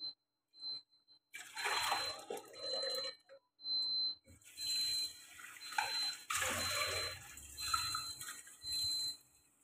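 Tap water running and splashing in a stainless steel pot as it is rinsed at the kitchen sink, in several gushes with short breaks between them.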